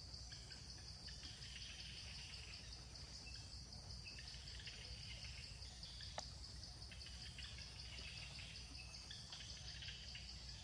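Faint outdoor insect chorus: a steady high drone with patchy chirring over a low rumble, and a single sharp click about six seconds in.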